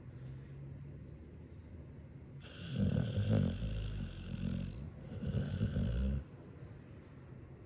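Dog snoring in its sleep: a faint low snore at the start, then two loud snoring breaths, the first about two seconds long and the second shorter, cutting off sharply.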